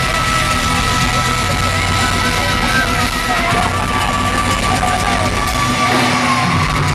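Loud live folk-metal concert heard from inside the crowd: heavy guitars and drums under a high melody of long held notes, with shouts from the crowd.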